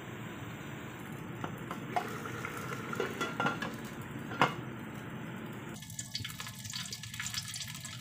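Hot aluminium cooking pot: a steady low hiss with a few sharp metal clinks, then from about six seconds in a dense crackling sizzle as cooking oil poured into the hot, still slightly wet pot starts to fry.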